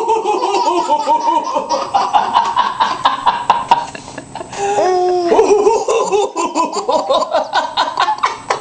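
A baby laughing hard in long runs of quick laughs, two spells with a short break about four seconds in.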